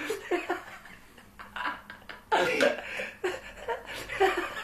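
People laughing and chuckling in short, broken bursts, the loudest starting suddenly about two and a half seconds in.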